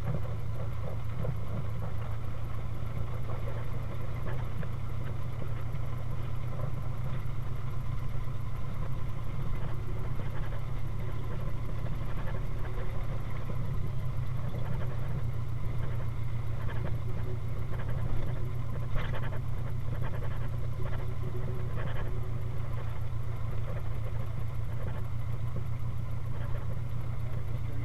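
The four-cylinder engine of a 1931 Ford Model A speedster running steadily as the car drives slowly.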